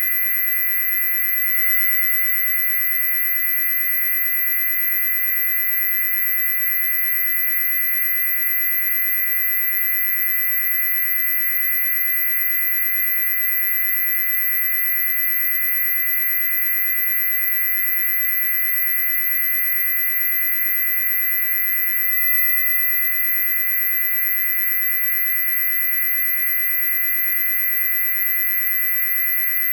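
Loud, steady, high-pitched electronic tone with no break or change in pitch. A piercing very high whine sits over a cluster of several steady lower tones.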